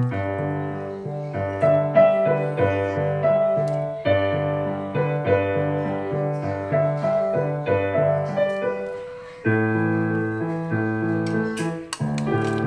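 Background piano music: a gentle melody over repeated low bass notes, with a short pause and a new phrase about nine seconds in.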